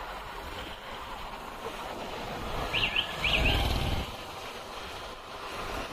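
Wind and road noise from riding along a road, with two quick bird chirps about three seconds in and a brief low rumble just after them.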